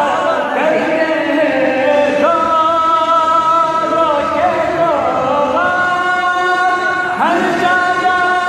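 A man singing a Sufi devotional anthem (tarana), holding long notes that slide from one pitch into the next.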